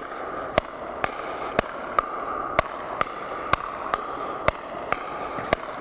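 Pickleball paddles hitting a plastic pickleball in a fast backhand-to-backhand volley rally: sharp, evenly spaced pops about two a second as the ball goes back and forth. A faint steady hum runs behind them.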